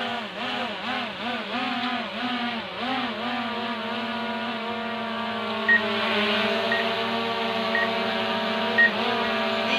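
Small foldable quadcopter drone hovering overhead, its propellers whirring with a steady pitched buzz that wavers up and down for the first few seconds as the motors keep adjusting, then holds steady. From about six seconds in, short high beeps sound about once a second.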